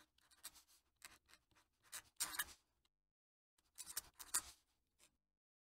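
A fountain pen nib scratching across paper, writing a looping signature in a run of short, faint strokes. The strokes pause for under a second about three seconds in, then resume before stopping a little after four and a half seconds.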